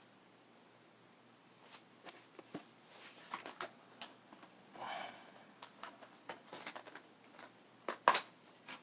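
Rustling and short clicks of a cardboard collection box and its packaging being handled, with a longer rustle about halfway through and a sharp tap near the end.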